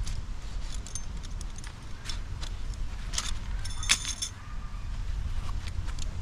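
DAC aluminium tent pegs clinking together as they are handled: scattered light metallic clicks, with a brighter ringing clink about four seconds in. A steady low wind rumble on the microphone runs underneath.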